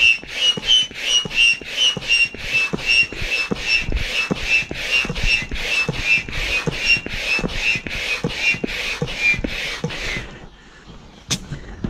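Hand pump inflating a wing-foil wing's bladder hard: quick strokes, about two to three a second, each a hissing rush of air with a whistling tone that drifts slightly lower, stopping about ten seconds in.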